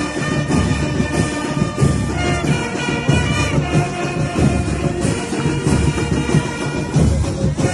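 A band playing upbeat music with a steady beat and held melodic lines.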